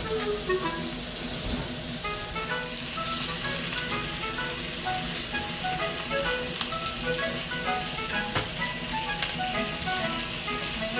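Food sizzling in a small seasoned iron frying pan, the sizzle getting stronger about three seconds in, with background music playing a light melody over it.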